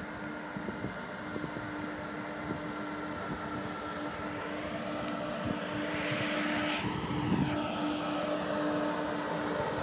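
Train running, a steady droning hum that grows slowly louder.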